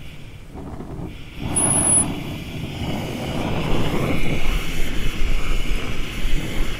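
Oxy-fuel torch flame hissing steadily, louder from about a second and a half in as the flame is brought down onto the grille slat to heat the stretched steel red hot for shrinking.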